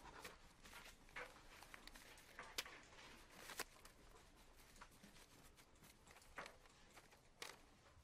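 Near silence: faint room tone with scattered small clicks and rustles.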